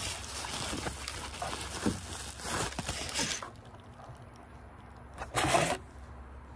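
Packaging rustling and crinkling as a new camera is worked out of its box, stopping after about three seconds, then one short rustle near the end.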